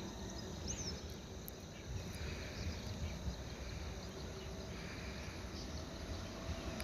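Faint low rumble of a distant electric express train approaching, over quiet rural background, with a single short bird chirp about a second in.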